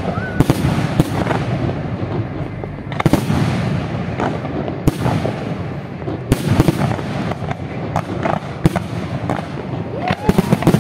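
Fireworks display: a dense, continuous crackle of bursting aerial shells, with many sharp bangs at uneven intervals.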